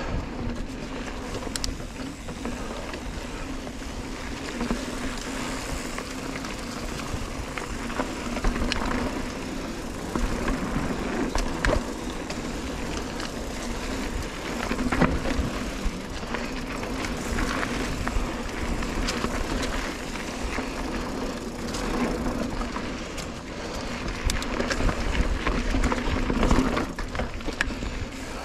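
Mountain bike riding over a dirt trail: tyres rolling on dirt, with frequent knocks and rattles from the bike over bumps, and wind rumbling on the microphone.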